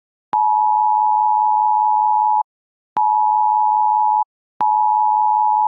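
Two close sine tones sounding together as a harsh two-tone chord, the US Emergency Alert System attention tone recreated on an FL Studio 3x OSC synth. It plays as one long tone of about two seconds, then two shorter ones of about a second each, and each starts with a click.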